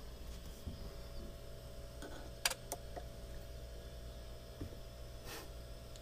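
Faint steady hum with a few sharp clicks, two of them close together about two and a half seconds in.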